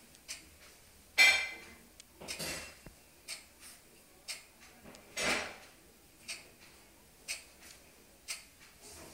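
A clock ticking steadily once a second, with a louder, ringing metallic clink about a second in and two softer scuffling noises, at about two and a half and five seconds in.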